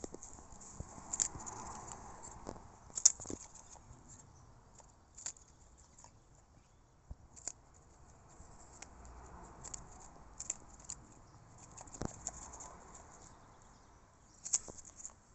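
Hens pecking and scratching in straw close by: scattered sharp taps and clicks over soft rustling, with the loudest taps about three seconds in and near the end.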